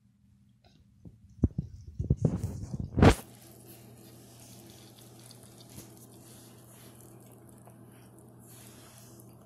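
A quick run of taps and knocks, the loudest about three seconds in, then a faint steady low hum with light scattered ticks.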